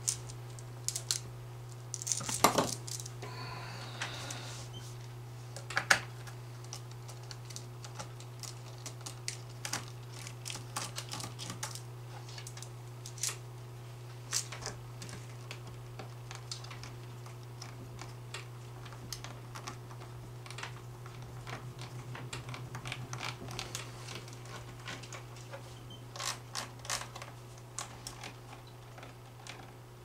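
Small screwdriver and loose screws clicking and tapping on a laptop's plastic bottom case as its screws are taken out: scattered light clicks at irregular intervals, over a steady low hum.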